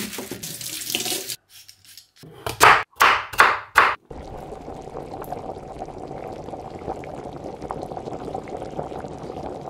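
A plastic bag of carrots rustling briefly, then four loud short strokes, then a saucepan of vegetable soup bubbling and popping steadily as it boils on the hob.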